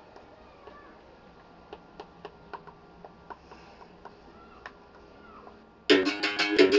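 Faint scattered clicks and taps for most of the stretch. Near the end a berimbau starts abruptly and loud: the stick strikes the steel wire in a quick rhythm, and the note switches back and forth between two pitches.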